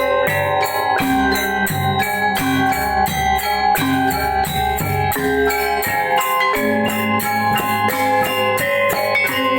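Balinese gamelan gong ensemble playing a pelegongan piece: rapid struck notes on tuned bronze metallophones over sustained ringing tones, with regular low strokes beneath.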